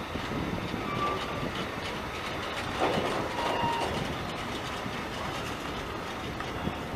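A train running past on the track, its wheels rolling steadily over the rails, with two brief squeals about one second and three and a half seconds in.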